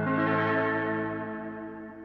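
Electric guitar played through the Austin "Summer Reverb" pedal, an emulation of a vintage tube spring-reverb tank for surf tones. A chord is struck right at the start and rings out with a reverb tail, fading over the two seconds.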